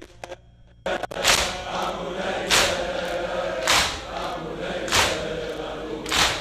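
A crowd of mourners chanting in unison while beating their chests in rhythm (sineh-zani). A loud slap lands about every 1.2 seconds. It starts about a second in.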